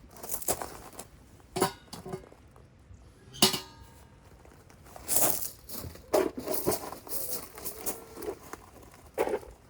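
Scattered knocks and clinks of objects being handled, one about three and a half seconds in with a short ring.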